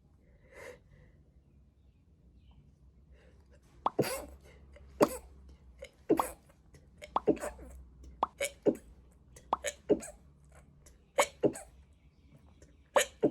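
A person sneezing over and over after a nasal swab, a rapid string of short, sharp sneezes starting about four seconds in.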